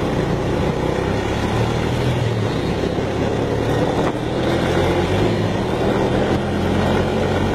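Honda ATV's single-cylinder engine running steadily at cruising speed as it rides along the road, its engine note wavering a little in pitch.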